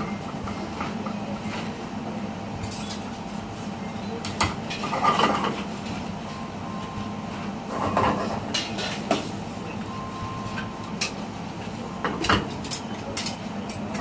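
Spoon clinking and scraping against an aluminium frying pan as pasta is stirred and tossed in sauce over a gas burner, in irregular clusters, loudest about five seconds in and again near the end. Under it runs a steady kitchen hum.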